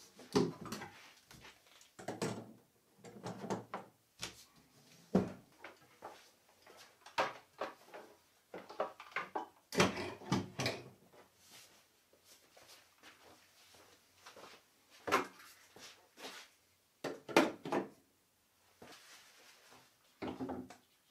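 Tools and workshop items being picked up, set down and put away: irregular knocks, clunks and short rattles, with quiet gaps between them.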